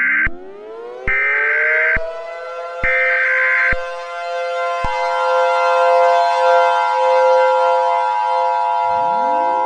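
Three short electronic data bursts of an Emergency Alert System header, each about a second long, over a civil defense siren winding up to a steady wail. About five seconds in, the two-tone EAS attention signal joins the wailing siren, and near the end another siren wind-up begins.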